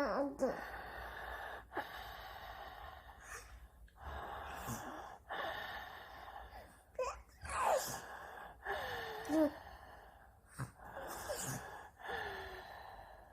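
A baby imitating snoring: a string of raspy, breathy snore-like sounds, each about a second long, with a few short high squeals mixed in.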